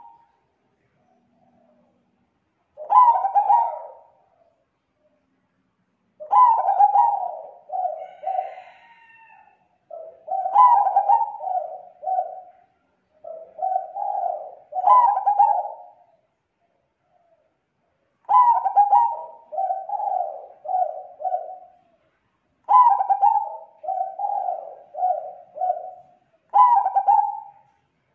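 Zebra dove (perkutut) cooing in about seven phrases. Each phrase opens with a higher, louder note and runs on into a string of lower staccato coos, with a pause of a second or two before the next. The voice is thick and clear.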